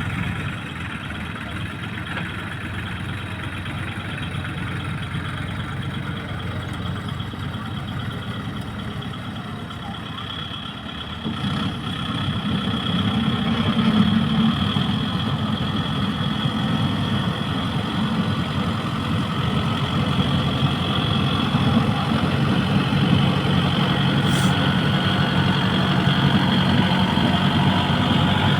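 Tractor engine running steadily while working soil, getting louder about eleven seconds in and staying at that level.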